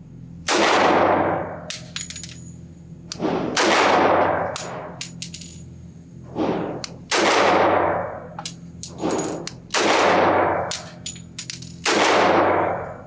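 Sig Sauer P227 .45 ACP pistol firing slow, single shots, a second or more apart, each echoing in an indoor range, with light metallic clinks between shots.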